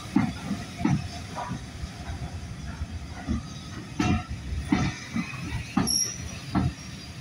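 Heritage passenger carriages rolling slowly past, their wheels knocking over the rail joints at uneven intervals over a low rumble, with a brief high squeal about six seconds in.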